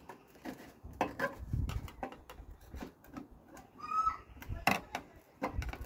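Clicks, knocks and scraping as the old window weather strip and its retaining clips are pried out along the top of a Vauxhall Viva door, with a brief squeak about four seconds in.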